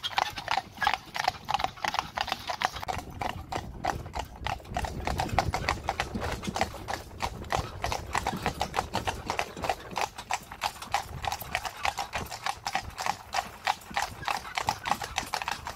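A pair of carriage horses' hooves clip-clopping on a paved lane in a quick, steady rhythm.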